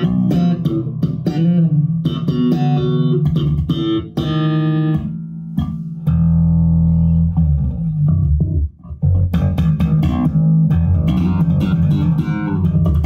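Fodera six-string electric bass played slap style through an amplifier, with thumb-slapped low notes and snapped pops, and a held low note around the middle. It is on the single-coil pickup setting with the treble tone slightly cut, which gives a clear tone without metallic fret noise.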